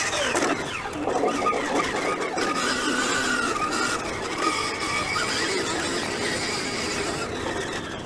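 Motocross bike engine revving hard, its pitch rising and falling again and again as the throttle is worked and gears change.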